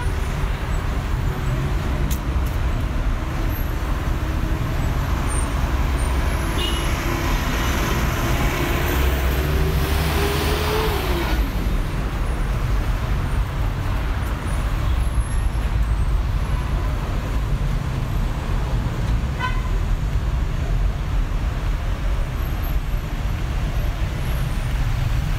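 City street traffic: a steady low rumble of cars. About 8 to 11 seconds in, one vehicle passes close by, its engine note rising and then dropping as it goes. About 19 seconds in there is a short car-horn toot.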